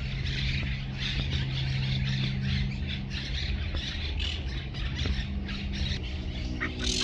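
Many small birds chattering and squawking together in a dense, continuous tangle of short calls, over a steady low hum.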